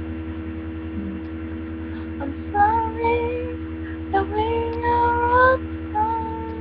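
A young woman singing solo, slow long-held notes with no clear words, starting about two and a half seconds in. A steady electrical hum from the recording runs underneath.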